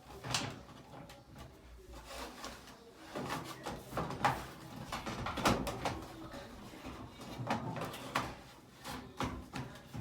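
Irregular knocks and clatter of a clothes dryer's metal console and panels being handled and moved during repair work, a handful of sharper bangs among them.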